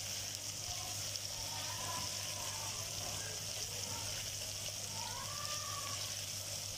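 Sliced onions frying in hot mustard oil in an aluminium pot: a steady sizzling hiss as they are stirred and browned to a light golden colour.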